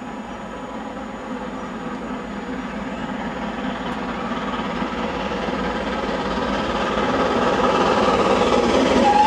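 GWR Castle class 4-6-0 steam locomotive No. 5043 approaching at speed with its train, its rumble on the rails growing steadily louder as it nears.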